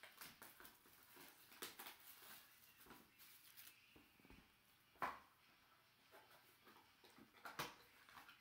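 Faint rustling and light clicks of a box of trading cards and their packaging being opened and handled, with two sharper clicks about five seconds in and near the end.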